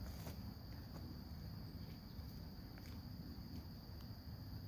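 Faint outdoor ambience: a steady, even high-pitched insect drone, typical of crickets, over a low rumble.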